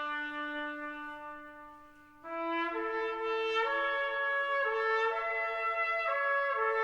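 Background music with brass, likely a trumpet lead. A held note fades away, then about two seconds in a slow melody begins, moving to a new note roughly once a second.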